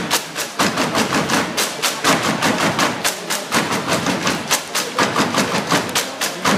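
Rhythmic percussion music: a fast, even run of sharp wooden and metallic strikes, several a second, without pause.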